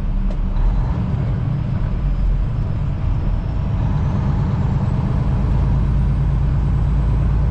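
Semi-truck's diesel engine and road noise, a steady low drone, with the truck pulling a full load of about 80,000 pounds.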